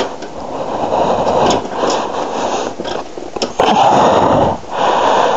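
Rough scraping and rolling noise in uneven surges as a motorbike is pushed by hand for a bump start, the engine not catching, with hard breathing from the person pushing.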